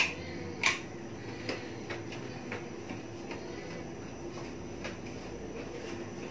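Stainless-steel pressure cooker heating on a gas burner: two sharp metallic clicks within the first second, then lighter ticks about every half second, over a steady low hum.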